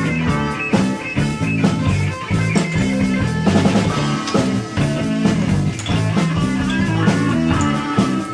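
Background rock music with bass, guitar and a steady drum beat.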